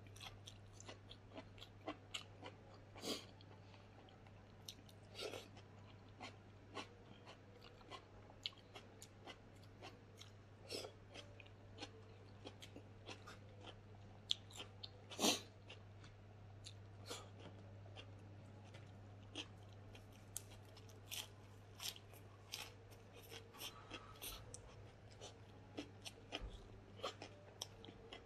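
A person chewing and crunching food eaten by hand, close to the microphone, with many irregular sharp mouth clicks and smacks and one louder click about halfway through. A steady low hum runs underneath.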